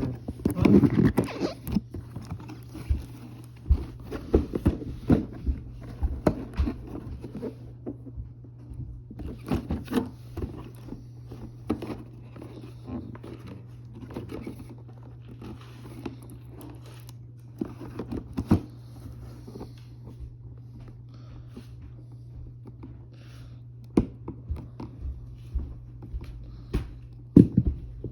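Toy packaging being handled and opened: cardboard and plastic scraping and crinkling, with scattered clicks and light knocks. A steady low hum runs underneath.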